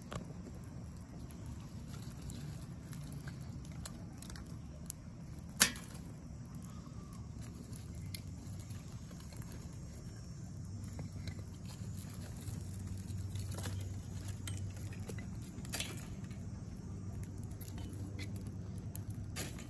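Wood fire burning in a metal fire pit, crackling with scattered sharp pops, one much louder than the rest about five and a half seconds in, over a low steady rumble.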